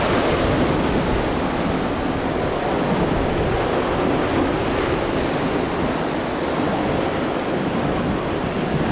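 Sea waves breaking and washing over rocks at the shoreline, a steady rushing surf noise that does not let up.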